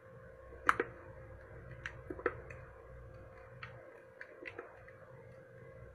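Batter being stirred by hand with a utensil in a small container, giving irregular light clicks and knocks against its side, the sharpest about a second in.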